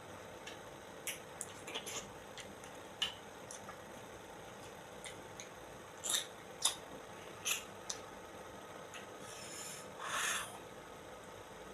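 Close-up mouth sounds of someone eating ripe mango: scattered wet smacks and clicks of biting and chewing, a few louder ones between six and eight seconds in, and a longer, noisier wet sound about ten seconds in.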